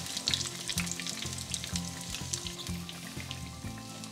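Vegetable oil sizzling and crackling as breadcrumb-coated vegetable cutlets deep-fry, with scattered pops over soft background music.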